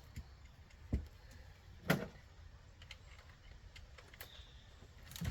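A few light, scattered knocks and clicks of hand tools on metal while loosening a strut's top mounting nuts; the loudest comes about two seconds in.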